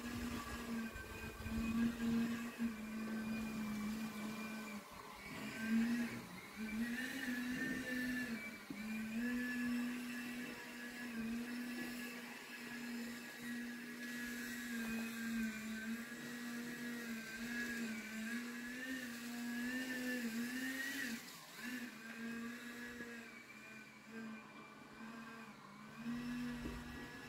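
A small motor running steadily with a high hum whose pitch wavers slightly now and then.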